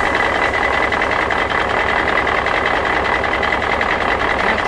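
A heavy engine running steadily, with a constant high whine above it.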